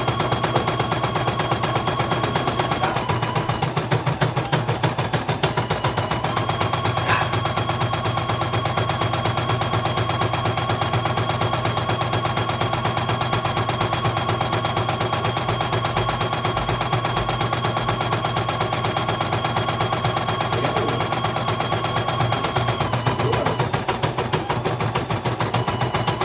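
CNY E900 portable computerized embroidery machine stitching a test design: a rapid, steady needle clatter with a high whine over it that dips briefly a few times.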